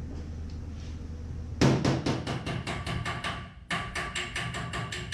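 Body hammer tapping out a dent in the Toyota Tundra's sheet-metal side panel: quick, ringing metal taps about six or seven a second, starting about a second and a half in, with a short break near three and a half seconds before the tapping resumes. A low steady hum lies under it before the tapping starts.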